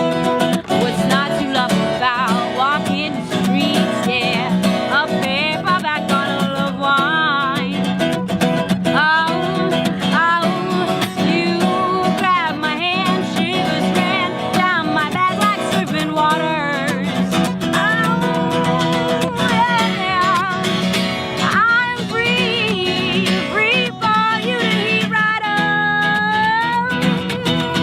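Acoustic guitar played as the backing to a woman singing a song, with her voice bending and wavering in pitch and held with vibrato near the end.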